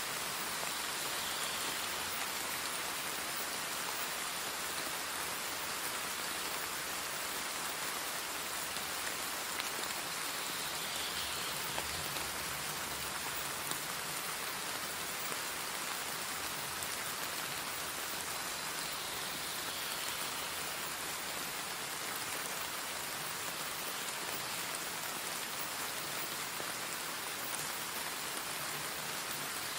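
Steady, even hiss of rain, used as the masking sound bed of a subliminal affirmation track.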